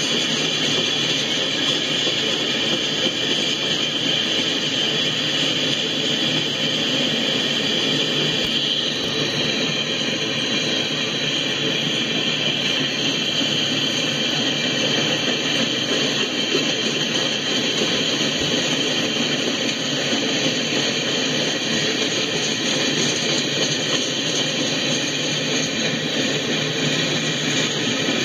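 Freight train cars rolling past on the rails, a steady, unbroken rumble and rush of wheels and car bodies. It is heard through a live train cam's stream played back on a speaker.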